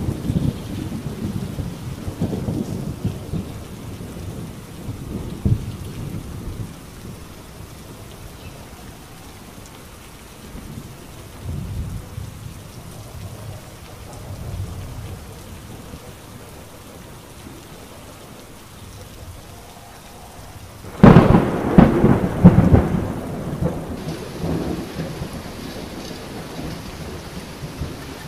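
Steady rain with rolling thunder. Low rumbles come and go, and about three-quarters of the way through a sudden, loud thunderclap rumbles for a couple of seconds.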